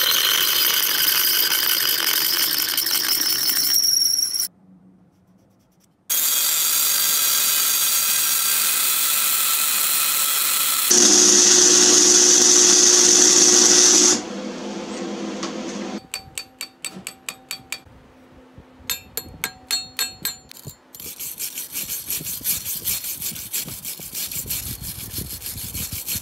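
A run of metalworking sounds. First a drill bores through steel angle iron, running steadily. After a brief gap there are longer passages through the middle with electric welding. In the last seconds a hand file strokes back and forth across steel held in a vise, in even rhythmic strokes.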